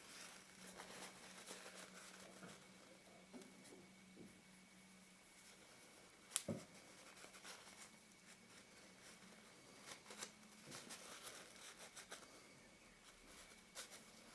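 Near silence with faint handling of small lens parts: scattered light clicks and rustles, one sharper click about six and a half seconds in, over a faint steady hum.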